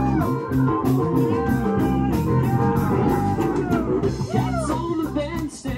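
Live rock band playing: a drum kit keeps a steady beat under bass, electric guitar and keyboard, with a melody line sliding up and down in pitch in the second half.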